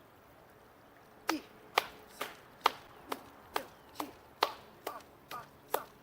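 Hands clapping in a steady rhythm, about two claps a second, starting a little over a second in. The clapping is driven by a bouncing whole-body wave as a qigong exercise to wake up the body.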